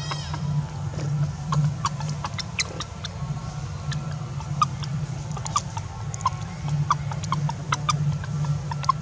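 Many short, high squeaks and chirps from an animal, scattered irregularly, over a steady low hum.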